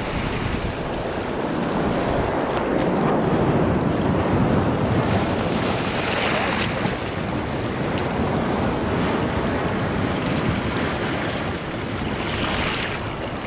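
Seawater washing over shallow shoreline rocks, with wind buffeting the microphone. The wash swells into brighter splashing twice, about six seconds in and again near the end.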